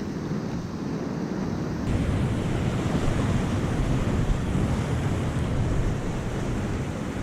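Ocean surf washing in steadily, with wind buffeting the microphone. The hiss turns abruptly brighter and louder about two seconds in.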